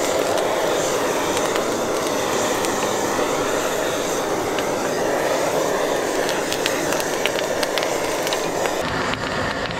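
Steady roar of a strong gas flame cooking spicy chicken feet over direct fire, with sizzling and scattered clicks of metal utensils.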